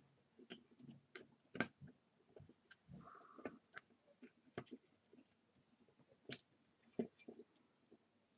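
Faint, irregular small clicks and taps from fingers handling the rear mount parts of a disassembled Sigma 50mm f/1.4 Art lens while its small gaskets are lined back up with the screw holes.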